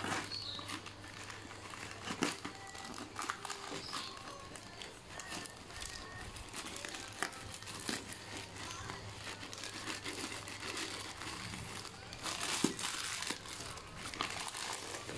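Plastic courier mailer and bubble wrap crinkling and crackling as they are pulled and torn open by hand, in a quick irregular run of small crackles that grows louder near the end.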